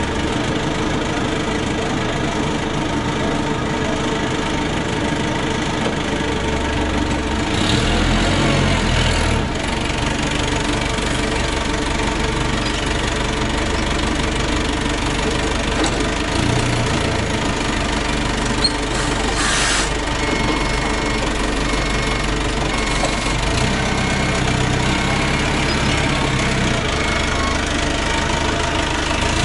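Engine running, its revs stepping up and down every few seconds, with a short hiss about two-thirds through.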